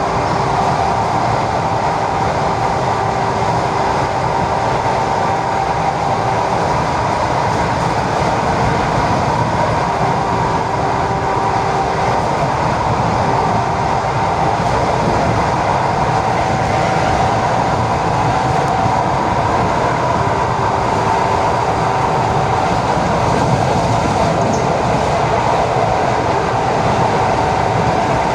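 ED4M electric multiple unit running between stations, heard from on board: a steady rumble of wheels and running gear, with a whine of a few steady tones that fades in and out.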